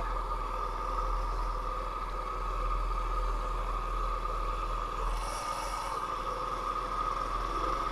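Sears Roper mini bike's small engine running at a steady speed while riding, with a steady whine over a deep rumble of wind on the helmet microphone. A brief hiss comes about five seconds in.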